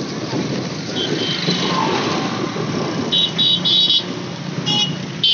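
Road traffic noise, with a run of short, high-pitched beeps starting about three seconds in.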